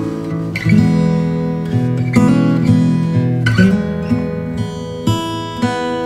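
Background music: acoustic guitar plucked and strummed, chords changing about once a second.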